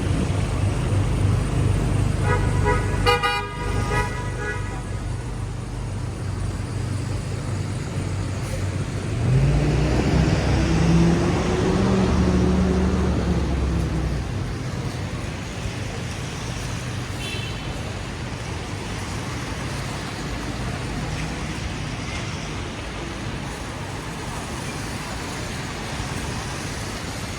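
City street traffic running steadily. A car horn honks about two seconds in for a second or so, and a heavy vehicle's engine passes louder from about ten seconds in, its pitch rising then falling away.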